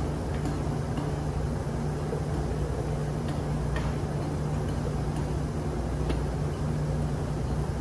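Steady drone of a ship's engine-room machinery with a low hum, and a few light metal clicks as the connecting rod's parts are handled.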